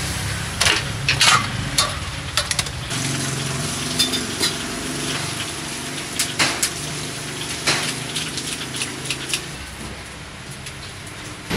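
Scattered sharp clinks and clacks of metal utensils against stainless trays and a mesh strainer at a street-food stall, over a steady low background hum.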